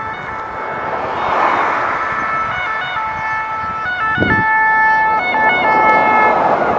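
Cars passing on the road, with a sustained set of high tones sounding together and shifting pitch in steps, like an electronic siren or jingle from a vehicle; a short low rumble about four seconds in.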